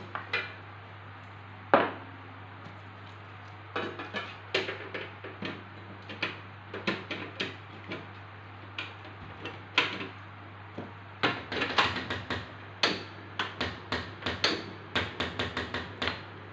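Wooden spatula knocking and scraping in a non-stick pan of curry, with the pan shifted about on a portable gas stove: irregular clicks and knocks, thickest in the last few seconds, over a steady low hum.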